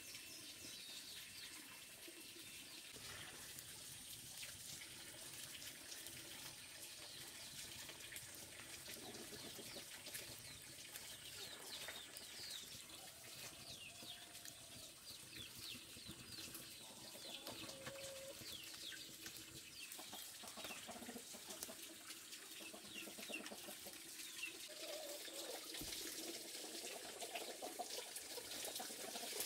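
Faint farmyard background: chickens clucking now and then over many quick high chirps of small birds, with light clicks scattered throughout.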